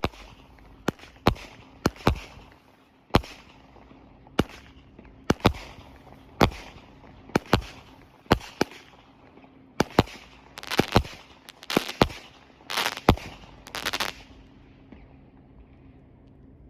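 A 200-gram consumer firework cake ('Helium') firing shot after shot, with sharp bangs every half second to a second. The bangs come in quicker runs near the end and stop about 14 seconds in.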